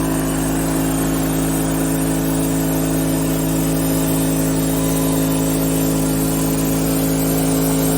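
Wood-Mizer LT30 portable band sawmill running steadily, its engine note constant and unchanging.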